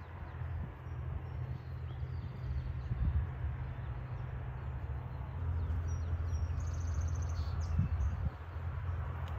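Outdoor ambience: a steady low rumble with a faint hum, and a few faint, high bird chirps about six to seven seconds in.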